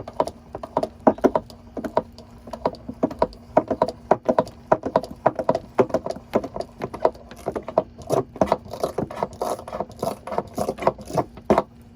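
Hand pump pushing gear oil into a van's differential, giving a fast, irregular run of clicks and rattles, several a second, that stops shortly before the end.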